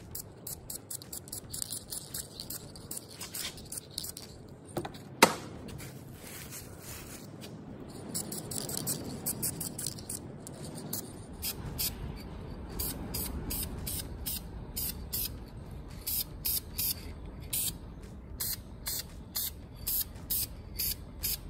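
Aerosol can of blue paint spraying in short hissing bursts onto a harmonic balancer and timing cover, coming about twice a second later on. A single sharp click about five seconds in is the loudest sound.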